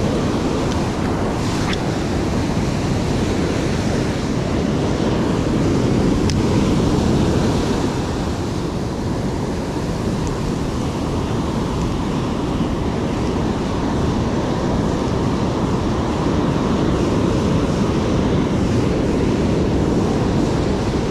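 Rough ocean surf breaking and washing up a sandy beach, a steady heavy rush of waves, with wind buffeting the microphone.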